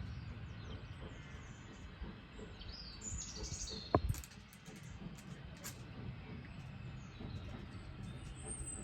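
Birds chirping in short high calls over a steady low background rumble, with one sharp knock about four seconds in.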